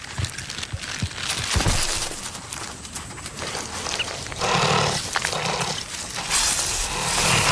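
Honey badger chasing a Cape cobra through dry brush: rustling and scuffling, with a harsh, noisy animal burst about four and a half seconds in.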